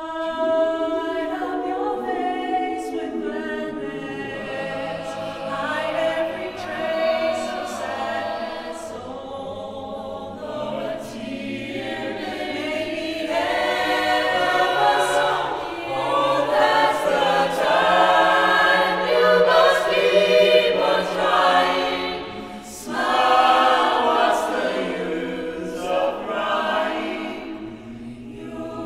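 Small mixed-voice ensemble of men, women and a child singing a cappella in harmony. The chords build to their loudest in the middle, with a short break between phrases about three-quarters of the way through.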